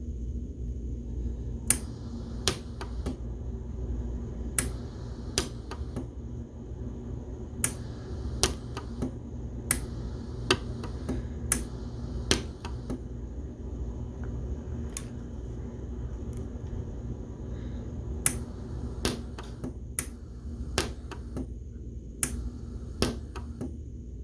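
Pulse arc welder firing weld pulses on 316 stainless steel: a series of sharp snaps, one per pulse, many in pairs less than a second apart with pauses of a few seconds between, over a steady low hum.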